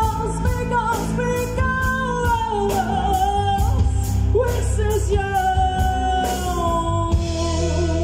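Live rock band with a woman singing held notes over drums, bass and electric guitar. The drums stop about seven seconds in, leaving sustained notes ringing.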